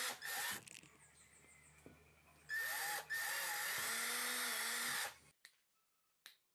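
Cordless drill pre-drilling screw holes in a PVC board, its motor pitch wavering as the bit cuts. It stops about half a second in, then runs again from about two and a half seconds to about five seconds, with a brief break near three seconds; a few faint clicks follow.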